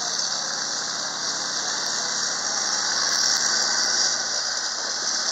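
Armoured half-track driving past, its engine running under a steady high-pitched squeal from the tracks and running gear, a little louder about three to four seconds in as it passes closest.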